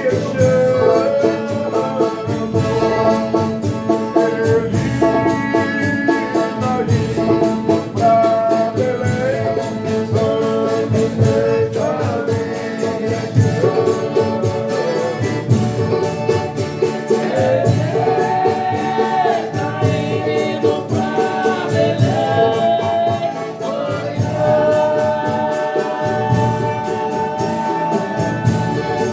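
A Folia de Reis group singing a thanksgiving song for a meal: several voices in harmony holding long, sliding notes, over instruments and a steady percussion beat.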